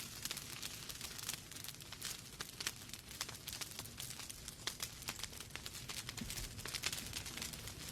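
Wood fire crackling in a fireplace: a dense, irregular run of small sharp pops and snaps from the burning logs over a soft low rush of flame.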